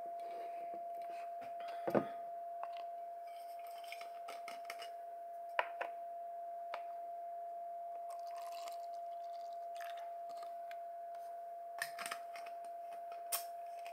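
Whisky bottle being handled and whisky poured into a thin plastic cup: a few light clicks and knocks with soft scraping and a quiet trickle, over a steady faint high-pitched hum.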